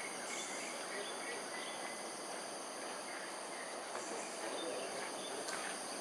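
Steady insect chirring, several constant high-pitched tones held together, over a low hiss of outdoor background noise, with a few short, faint high chirps scattered through.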